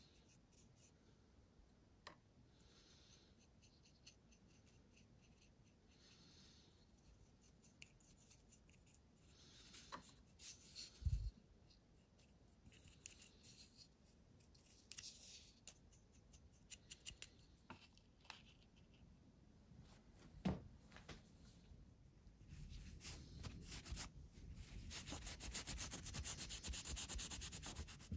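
Small paintbrush working dark stain into a carved black walnut handle: soft, quiet rubbing strokes of the bristles on the wood, with a couple of light ticks. Near the end comes a louder stretch of rapid rubbing strokes.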